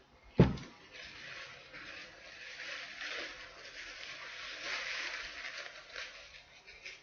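A single thump about half a second in, then the dry, uneven rustling of a paper tissue rubbed over a CD as the disc is wiped dry, stopping just before the end.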